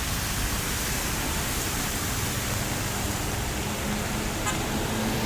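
A bus driving through floodwater: a steady rush of water and spray with the engine running low underneath.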